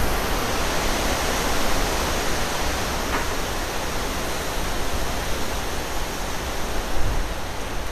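Hurricane wind gusting through the trees: a steady, loud rushing noise.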